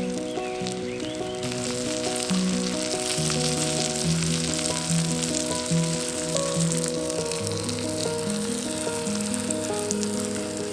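Food sizzling and crackling as it fries in a pan, starting about a second and a half in, over background music of sustained melodic notes.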